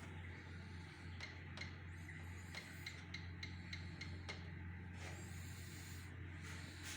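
Faint steady low hum, with a quick run of short high chick peeps, about three a second, from about one second in to about four and a half seconds.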